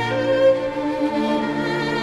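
Background music with long held notes; the low note moves up about a second in.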